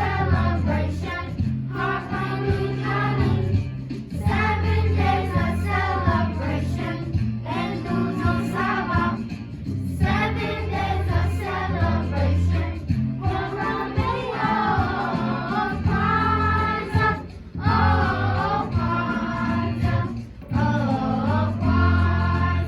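A group of children singing a holiday song together in phrases, over an instrumental accompaniment with a steady bass line.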